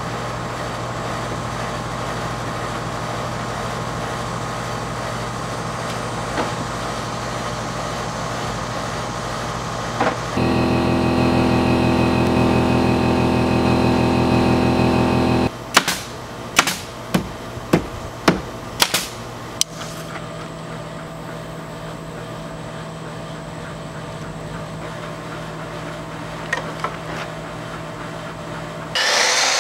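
A steady motor hum with several pitches, louder for about five seconds in the middle. About seven sharp knocks follow it in quick succession. A power saw starts cutting wood right at the end.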